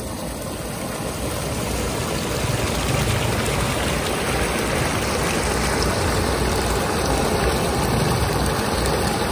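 A vehicle engine running under a loud rushing noise. It grows louder over the first three seconds, then holds steady.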